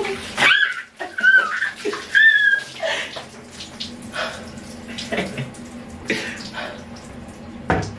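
Water poured from a bucket, splashing over a waterproof rain hat and into a shower tub, with a woman's short high-pitched squeals in the first few seconds. The pour thins out about halfway through.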